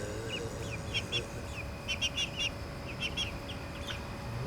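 Young chickens peeping: short, high chirps in quick clusters of two or three, over a steady low hum.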